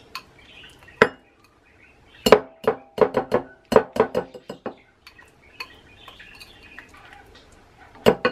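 Metal wire whisk clinking and tapping against glass dishes while thick margarine is scraped off it into a container. A string of sharp clinks comes about a second in, gathers into a quick cluster from about two to four and a half seconds in, and returns twice near the end, with soft scraping in between.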